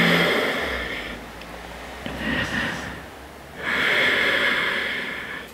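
A person's long audible breaths: a loud one at the start, a shorter, fainter one about two seconds in, and another long, loud one from nearly four seconds in.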